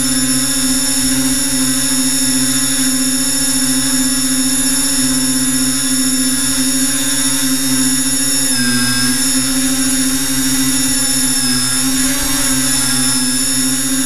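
Electric motors and propellers of an FPV multirotor, picked up by its onboard camera, running as a steady high-pitched whine. The pitch dips about eight and a half seconds in, then climbs back over the next few seconds as the throttle changes.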